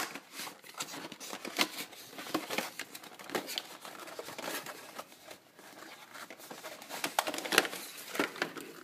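Cardboard retail box with a clear plastic window being handled and opened: crinkling and rustling of cardboard and plastic, with scattered clicks and taps.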